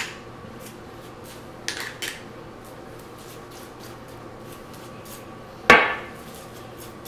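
A table knife clinking against a glass jar of orange marmalade: two quick clinks about two seconds in, then a single louder clink with a short ring about two thirds of the way through.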